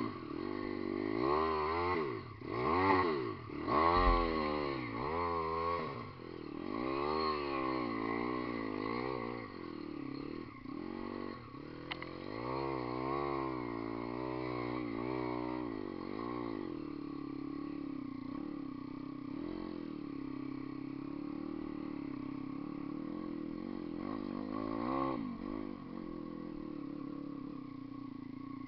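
Dirt bike engine revving up and down again and again as it is ridden along a rough trail. For the second half it runs at a steadier, more even speed.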